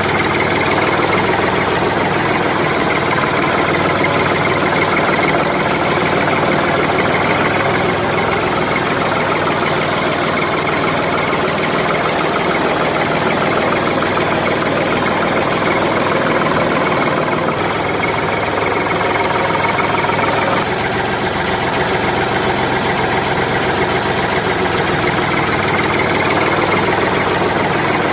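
A small engine running steadily, with a slight drop in level about two-thirds of the way through.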